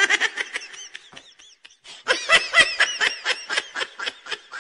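Laughter in quick runs of short, high 'ha' bursts. It breaks off briefly about two seconds in, then comes again louder and tails off near the end.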